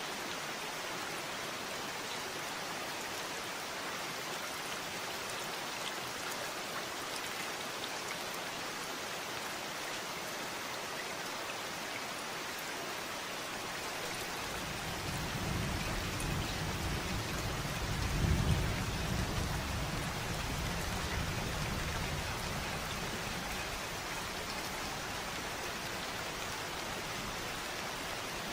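Steady rain falling, with a low roll of thunder that swells in about halfway through, peaks a few seconds later and dies away.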